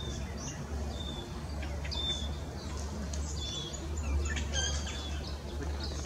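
Eastern spinebill calling: a string of short, high piping notes, with a quicker cluster of notes about two-thirds of the way in, over a steady low rumble.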